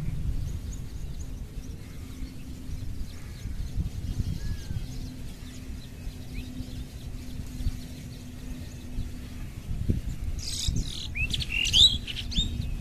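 Small birds chirping, with a brief flurry of quick, high, sweeping calls near the end, over a steady low rumble.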